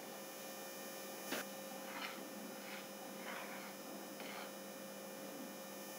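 Steady electrical hum, with a handful of faint scrapes from a steel ladle stirring thick chutney in a kadhai.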